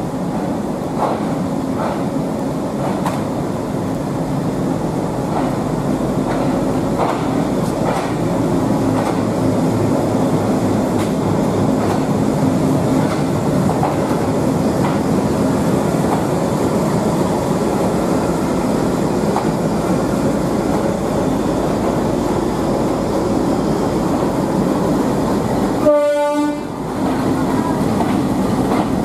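Diesel locomotive rolling slowly past with its engine droning steadily and its wheels clicking over the rail joints. A short train horn blast sounds near the end.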